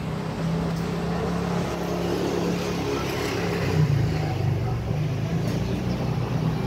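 Diesel engine of an approaching train running with a steady low hum, swelling briefly about four seconds in.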